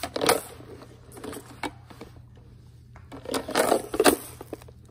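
Clattering handling noises of small hard objects: a short burst near the start, a few light ticks, then a longer, louder stretch of clatter about three seconds in.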